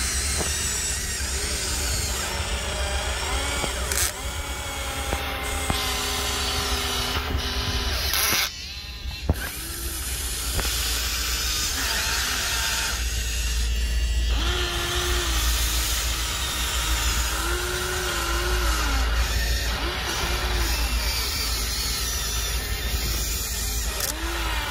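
Electric drive motors and gearboxes of a Huina 1593 remote-control excavator whining as it digs, swings and dumps, the pitch rising and falling with each movement. The sound dips briefly about eight seconds in.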